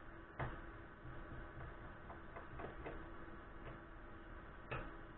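Faint, light clicks and ticks of a small Phillips screwdriver working tiny screws out of an LG G3 phone's plastic rear housing: a sharper click about half a second in and another near the end, with softer ticks between.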